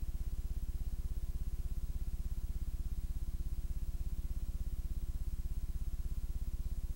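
Steady low electrical hum with a rapid, even pulse, the line noise of a VHS playback over a blank blue screen.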